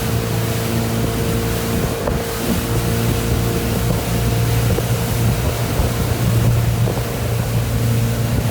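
Motorboat engine running steadily under way, a constant low drone, with wind buffeting the microphone and the rush of water.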